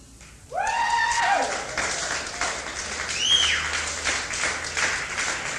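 Live audience clapping and cheering, with a loud voiced whoop about half a second in and a high whistle about three seconds in.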